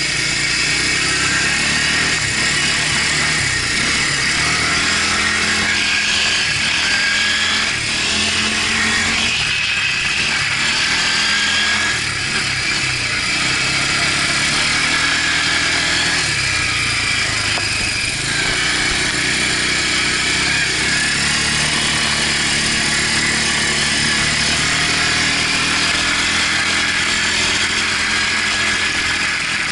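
Quad bike engine running under throttle, its pitch rising and falling every few seconds as it speeds up and eases off, with a steady high hiss over it.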